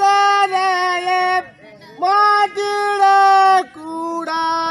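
A high voice singing long held notes in the style of Tamil naattu koothu folk theatre, in three phrases with short breaks between them.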